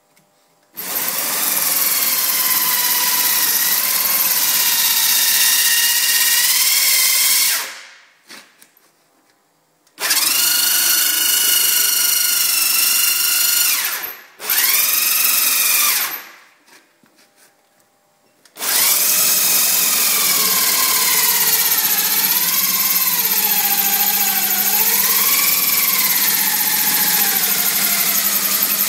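Electric drill cutting a hole in a Jeep Wrangler's sheet-metal body, its whine wavering in pitch as the bit loads up. It runs in four stretches, stopping briefly about 8, 14 and 16 seconds in.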